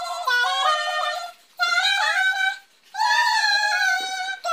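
A high-pitched voice singing three held, wavering phrases of about a second each, with short breaks between them.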